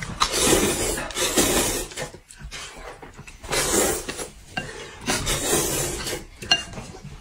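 A person slurping hot and sour glass noodles up from a bowl of soup: about three long, loud slurps with short pauses between.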